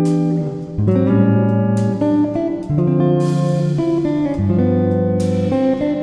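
Background instrumental music with plucked guitar-like notes over a bass line that changes about once a second.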